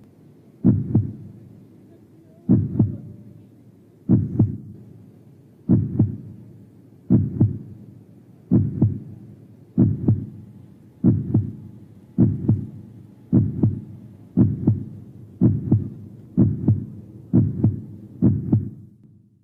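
Heartbeat sound effect: paired low thumps, a lub-dub, repeating and speeding up from roughly one beat every 1.7 seconds to about one every 0.7 seconds, then cutting off abruptly.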